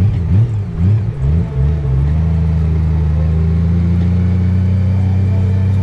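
2015 Honda GL1800 Goldwing's flat-six engine, heard from on the bike. Its pitch rises and falls about four times over the first two seconds, then holds steady as the bike rides on at an even speed.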